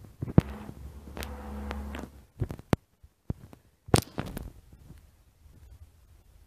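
Scattered sharp knocks and clicks of close handling and movement, about seven in all, over a low hum that stops about two seconds in.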